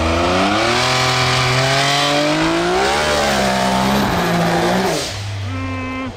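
Turbocharged Can-Am Maverick X3 engine at full throttle, its pitch climbing through the revs, easing back about four seconds in and fading after five, with gravel spraying from the tyres. A burble is thought still to be there even after fresh spark plugs and re-grounded ignition coils.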